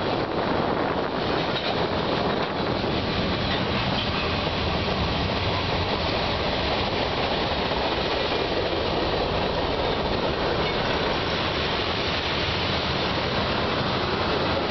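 Freight cars of a long mixed freight train (centerbeam lumber flats, covered hoppers, tank cars, boxcars) rolling past close by: steel wheels on the rails making a steady, unbroken rolling noise.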